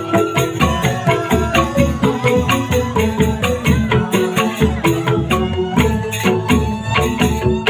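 Music with a steady beat: pitched melody and bass parts over percussion striking about four times a second.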